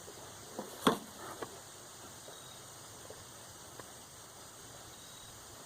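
Hands working a push mower's primer bulb and housing: a few short clicks and taps, the loudest about a second in, over a faint steady hiss.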